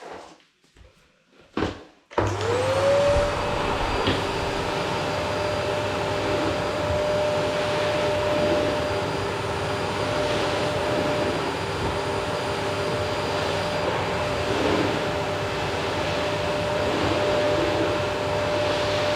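A couple of short knocks, then a vacuum cleaner is switched on about two seconds in: its motor whine rises quickly to a steady pitch and it keeps running steadily.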